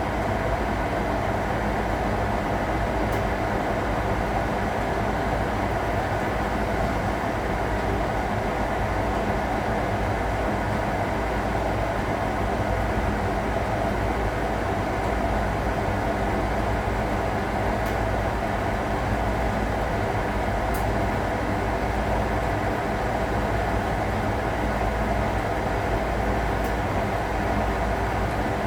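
1961 AEG Lavamat Noris washing machine running with a steady, even hum and rush that never pauses.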